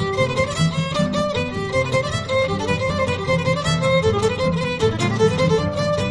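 Background music led by a violin playing a lively tune over a steady accompaniment.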